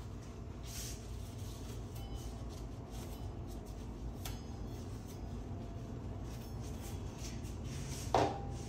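Steady low room hum with a few faint small handling ticks, and one short louder clink about eight seconds in.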